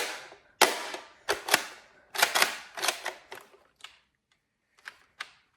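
A Nerf blaster fired repeatedly, a rapid series of sharp snaps about two a second that thin out after about four seconds, with a few faint clicks near the end.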